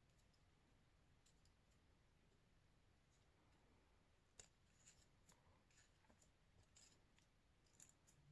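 Near silence, with faint scattered ticks and crinkles of a scrap-paper bow handled between the fingers from about four seconds in.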